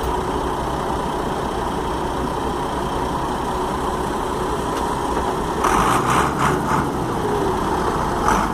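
Heavy diesel engines running steadily, with a few short bursts of hissing noise about two-thirds of the way through.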